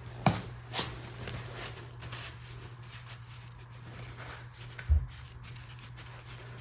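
Light clicks and knocks of hand work on an engine teardown over a steady low hum, with one dull thump about five seconds in.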